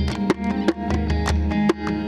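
Tuareg desert-blues music: plucked guitars over a steady bass line, with sharp percussive hits keeping the beat.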